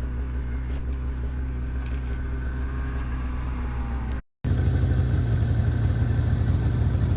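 Snowmobile engine running steadily. It breaks off briefly about four seconds in and comes back louder and closer.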